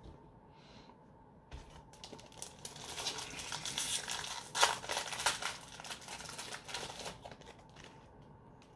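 Foil Yu-Gi-Oh booster pack wrapper crinkling and tearing as it is handled and ripped open. The crackly rustle starts about a second and a half in, is loudest around the middle, and dies down near the end.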